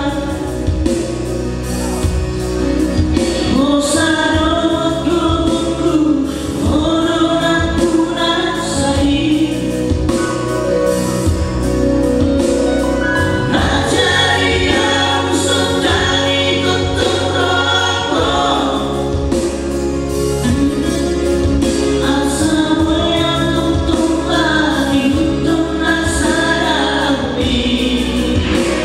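Male vocal trio singing a Christian song together in harmony through microphones, over an accompaniment with a steady bass line.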